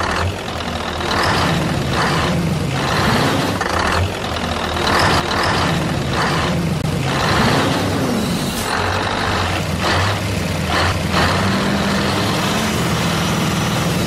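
Heavy truck engine sound running steadily with a low, wavering hum, overlaid with short hissing bursts that come and go about every second or so.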